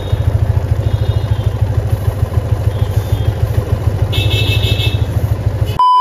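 Yamaha FZ25's single-cylinder engine idling with a steady, even pulse while chain lube is sprayed onto the drive chain in short hisses, the longest from about four to five seconds in. Just before the end the engine sound cuts off into a steady electronic beep tone.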